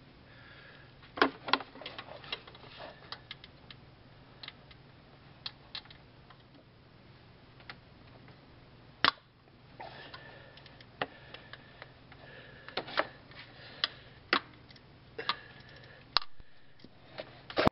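Irregular metallic clicks and taps of hand tools and fingers working among engine parts in a cramped engine bay, while a cam position sensor's 10 mm bolt is reached and loosened, with a few louder knocks among them. A faint steady low hum runs underneath.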